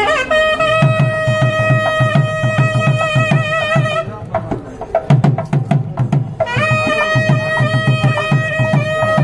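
Traditional temple music: a reed wind instrument holds one long high note over steady barrel-drum strokes. About four seconds in, the pipe drops out for about two seconds, leaving the drum playing alone, then the long note returns.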